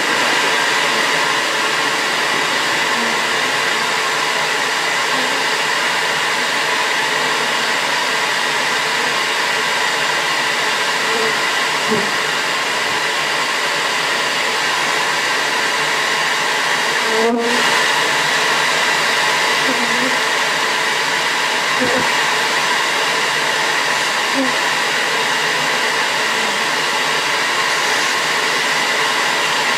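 Bee vacuum's motor running steadily, sucking up honey bees.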